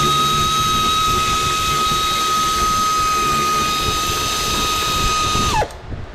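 Power drill running at a steady high whine, then released about five and a half seconds in, its pitch falling quickly as it winds down and stops.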